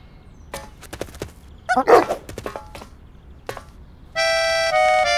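Cartoon sound effects: scattered light knocks and clicks, with a quick sliding squeak about two seconds in. From about four seconds a loud, buzzy held tone steps through four notes, dipping down and back up.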